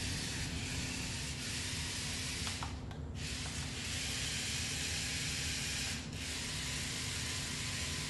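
Small 4WD RC stunt car's electric motors and wheels running with a steady high whir as it drives on carpet, cutting out briefly about three seconds in and again about six seconds in.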